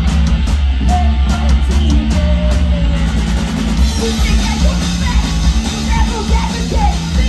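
Punk rock band playing live and loud, with amplified electric guitar and drums. A woman's voice comes in singing about four seconds in.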